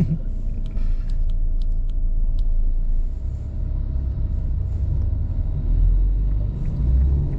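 A car's engine and tyre rumble heard from inside the cabin while driving, a steady low rumble that swells toward the end.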